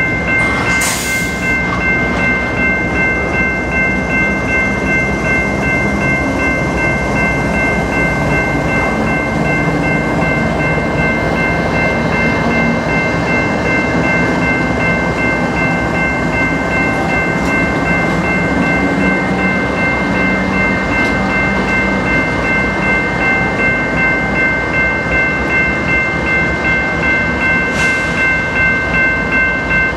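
Freight train rolling past, its tank cars' wheels clicking rhythmically over the rail joints, with a diesel locomotive (an ES44AC) going by around the middle. Grade-crossing warning bells ring steadily throughout and cut off right at the end.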